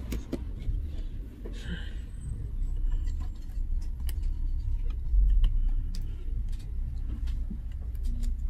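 Scattered light clicks and taps of a laptop's thin Wi-Fi antenna cable being pressed and tucked into its plastic routing channel, with a brief rustle about two seconds in. Under them runs a steady low rumble that swells about five seconds in.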